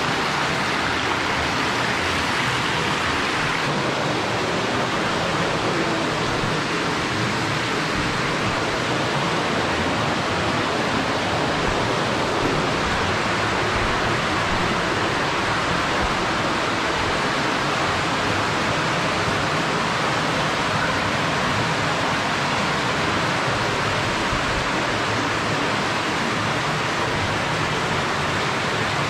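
Rushing water of a stream: a loud, steady rush that holds even with no let-up.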